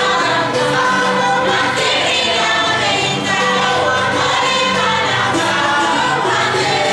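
Many voices singing together in chorus, held continuous notes at a steady level.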